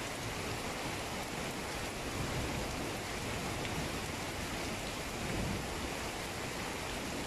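Steady rain falling, a continuous even hiss with small swells about two seconds in and again near five and a half seconds.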